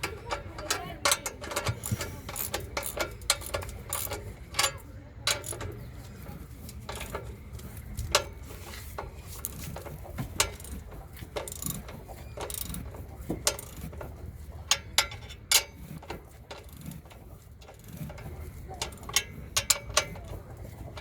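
Ratchet wrench clicking in short irregular runs, with scattered sharp metallic clicks of hand tools at work on the car.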